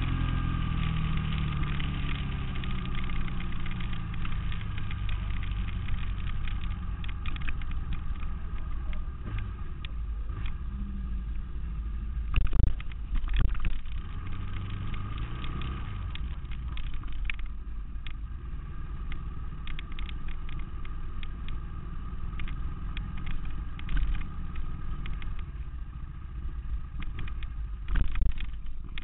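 Ducati Monster S4Rs's L-twin engine heard from an onboard camera: revs fall as the bike slows, then it runs at low revs while riding slowly. A couple of loud knocks about halfway through.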